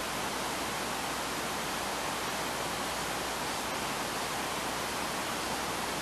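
Steady, even hiss with no distinct sounds over it.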